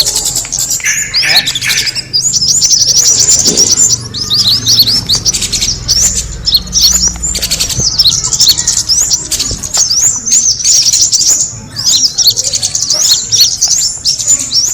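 Kemade bird lure call: a dense, unbroken run of rapid high chirps and short trills, loud throughout.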